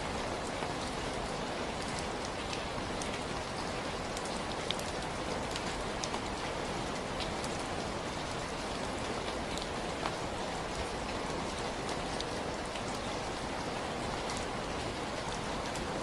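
Steady rain falling, a dense even hiss with scattered individual drop ticks.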